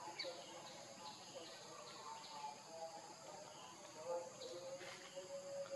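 Faint tropical forest ambience: a steady high-pitched insect drone with scattered short bird chirps.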